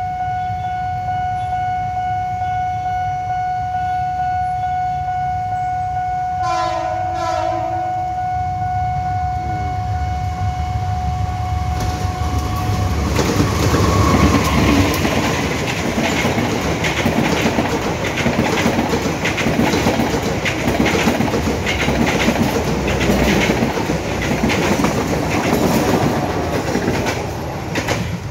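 A level-crossing warning signal rings a steady tone, and about six seconds in a diesel locomotive's horn blows once, briefly. From about twelve seconds a passenger train passes close by, its wheels clattering over the rail joints, loudest as the locomotive goes by and then a steady run of coaches.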